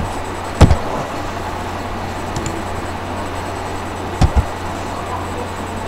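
Steady background hiss with a low hum, broken by two sharp knocks, one about half a second in and a doubled one about four seconds in.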